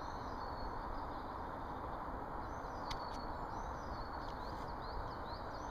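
Small birds chirping and calling again and again over a steady outdoor hiss, with a single brief click about three seconds in.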